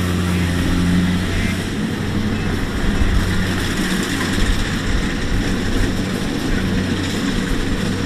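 Kubota DC-70 rice combine harvester running steadily: a low, even diesel engine hum under a broad mechanical rush.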